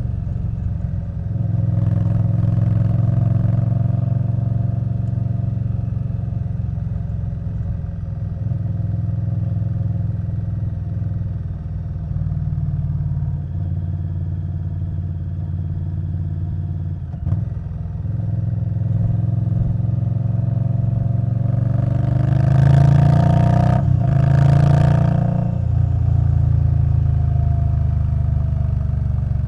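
A 2021 Indian Scout Bobber Twenty's V-twin engine running through a V&H Twin Slash exhaust under way, its note shifting as the rider changes speed. There is a single sharp click about halfway through, and two short, louder rushes of engine and noise come about three-quarters of the way in.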